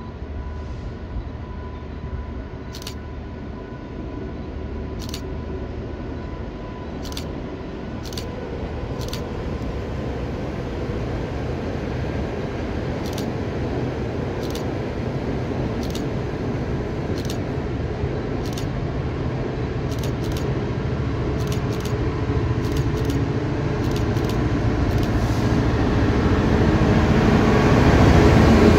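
Class 66 diesel locomotive hauling a container freight train, its engine drone growing steadily louder as it approaches and draws alongside near the end. Scattered sharp clicks sound throughout.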